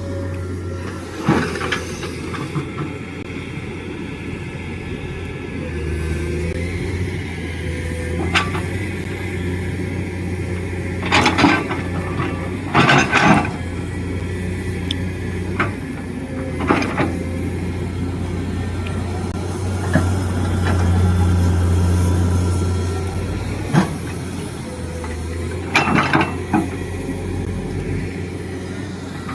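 Excavator diesel engine running steadily, its drone rising for a few seconds about twenty seconds in, with several short knocks from the machine's work, the loudest around the middle and near the end.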